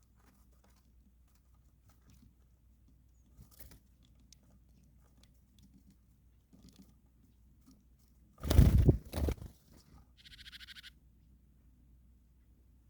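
Birds pecking and cracking seed with faint scattered taps. About two-thirds of the way through comes a loud double thump or rustle, followed by a short raspy buzz lasting about a second.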